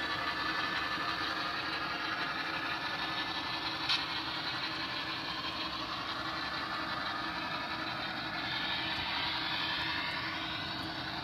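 Athearn Genesis FP7 HO-scale model diesel locomotive running with a train of reefer cars. A steady engine-like drone mixes with the noise of wheels rolling on the track. There is a single sharp click about four seconds in, and a higher whine rises near the end.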